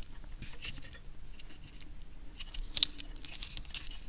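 Light scraping and clicking of a small 3D-printed plastic case being handled and squeezed together by hand, with one sharper click about three seconds in.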